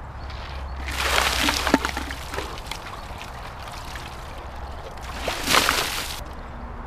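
Two plastic buckets of ice water poured over a person's head, each pour a loud splash of falling water: the first about a second in, the second about five seconds in.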